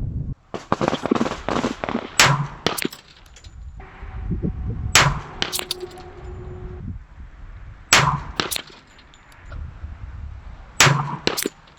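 A .45 pistol, the CZ 97 BE, fired slow aimed shots, four loud shots about three seconds apart, each followed by a fainter crack about half a second later. Quieter gunfire sounds between them, and wind rumbles on the microphone.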